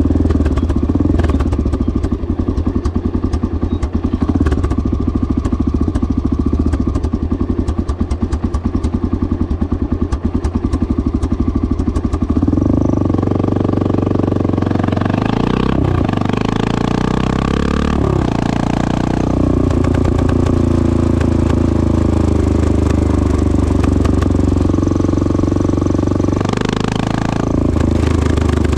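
1986 Honda XL600R single-cylinder four-stroke engine through a stainless Devil exhaust, chugging at a low, pulsing idle. About halfway in it picks up speed, and the exhaust note rises and falls with the throttle.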